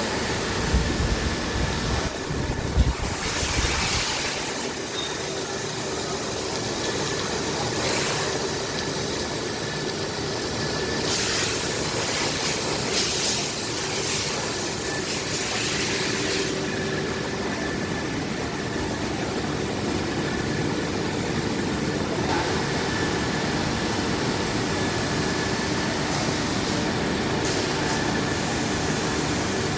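Steady industrial machine noise with a faint steady hum. Stretches of louder hiss come and go several times, with a low rumble in the first few seconds.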